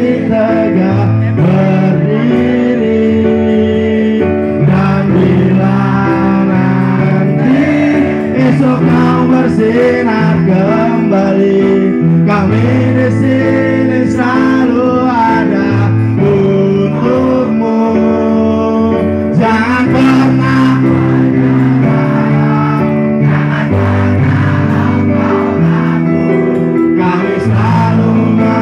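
Live acoustic music: a steel-string acoustic guitar played with keyboard accompaniment, under a singing voice carrying the melody.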